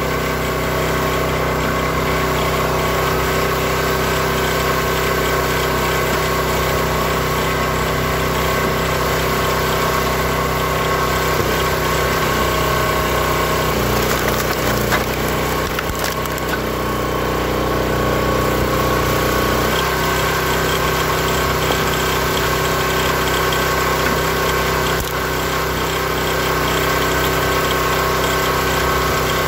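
Built-Rite hydraulic log splitter's gas engine running steadily, driving the hydraulic pump. Its note shifts for several seconds around the middle as the splitter works through the wood.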